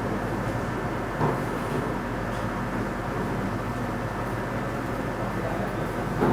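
Steady electrical hum and low noise from the repair bench, with a light tap about a second in.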